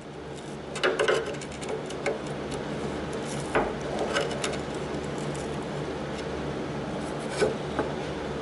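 Sheet-metal tailgate repair panel being handled and test-fitted: irregular light knocks, taps and scrapes of metal on metal, the loudest about a second in and twice more later, over a steady low shop hum.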